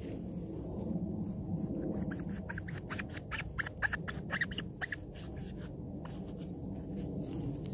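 Knife cutting into the soft, young cap of a resinous polypore (Ischnoderma resinosum) at its base on the log: a quick run of short squeaks and clicks as the blade works through the rubbery flesh, thickest from about one to five seconds in.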